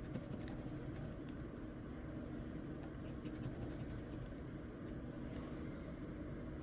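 Scratch-off lottery ticket being scratched: soft, steady scraping across the ticket's coating, with a few faint ticks.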